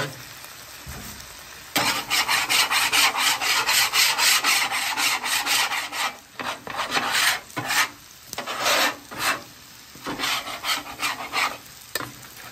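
A metal bench scraper is scraped hard across the steel cooktop of a Blackstone flat-top griddle. The rapid back-and-forth strokes start about two seconds in and later break into shorter, separate strokes. It is clearing the sticky sugars of the sauce off the surface before they harden.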